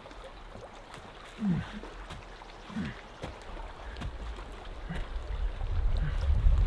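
A man grunting with effort, short low grunts about a second and a half apart, as he hauls a canoe overhead up a slope, with footsteps crunching on dry needles and twigs. A low wind rumble on the microphone builds over the last couple of seconds.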